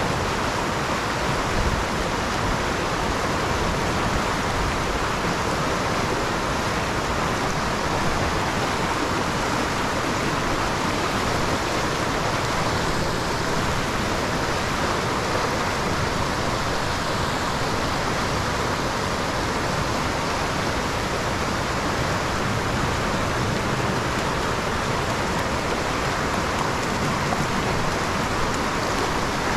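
Creek water rushing steadily, swollen and fast-running after rain.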